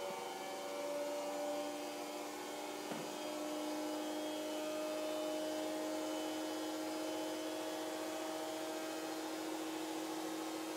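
A steady machine hum with a slowly rising whine. There is a faint knock about three seconds in.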